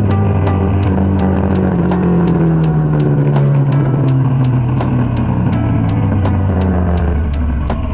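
Kawasaki Dominar 400's single-cylinder engine running with its pitch slowly falling as the bike slows down, over a steady hiss, with faint regular clicks about three times a second.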